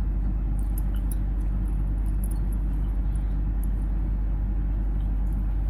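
Steady low hum and rumble, with a few faint ticks.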